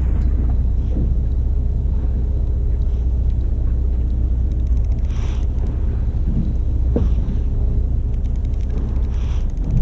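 Fishing boat's engine running with a steady low rumble. A brief hiss comes about halfway through and a sharp click follows a couple of seconds later.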